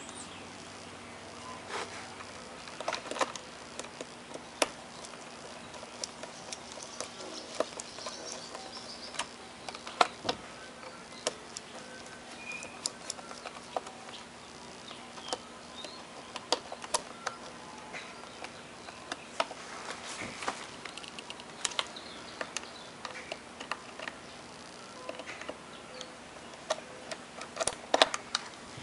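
Scattered light clicks and taps of small parts and tools being handled during work on a two-stroke string trimmer, over a faint steady hum.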